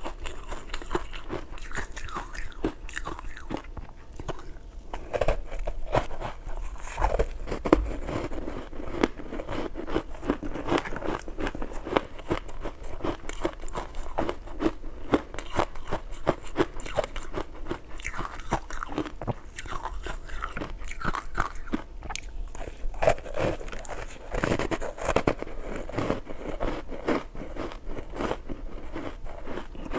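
Close-miked biting and chewing of soft frozen ice dusted with matcha powder: a dense, continuous crunching.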